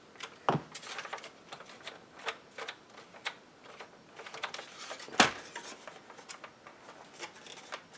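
Irregular plastic clicks and taps of HVAC control panel push buttons being pressed over and over, with two louder knocks about half a second in and about five seconds in. The buttons are sticking because the dash panel is screwed on too tight and binds them.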